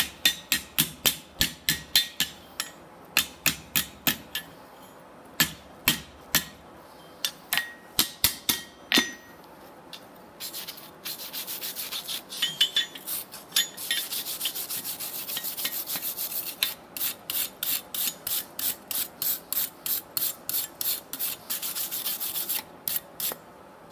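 Hand hammer striking a hot steel leaf on a Hudson anvil, quick ringing blows about three a second with short pauses, for the first nine seconds or so. Then a wire brush is scrubbed back and forth over the leaf on the anvil face, a steady scraping rasp of about three strokes a second, stopping just before the end.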